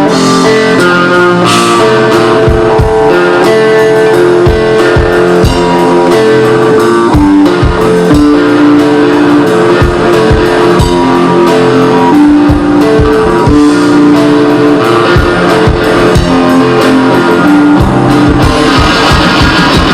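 Rock band playing its original song live: a guitar-led passage without vocals, with held melodic notes that change every second or so over a steady beat.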